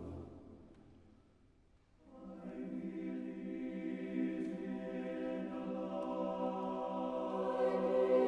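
The preceding music fades out, and about two seconds in a large mixed choir enters, singing sustained chords that slowly grow louder.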